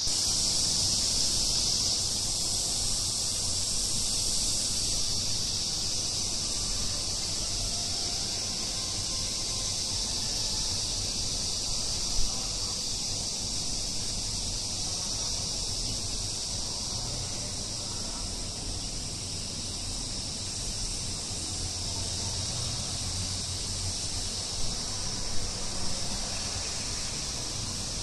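Steady high-pitched outdoor ambience picked up by a smartphone's microphone, with a few brief knocks about twelve seconds in and again near the end.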